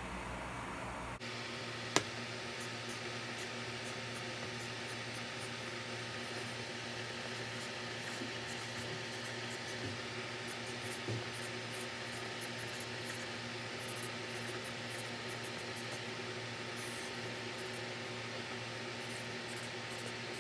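Felt-tip marker squeaking and scratching on paper in many short strokes as letters are written, over a steady low hum and hiss. A single sharp click about two seconds in.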